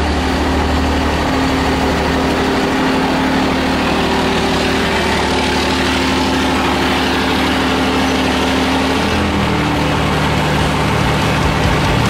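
Cummins turbo-diesel engine of a pickup truck idling steadily. Its note changes about nine seconds in.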